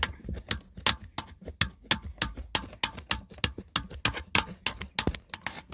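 Sawdust being filled and packed around a pipe in a sawdust-stove container: a string of quick, irregular taps and knocks, about three or four a second.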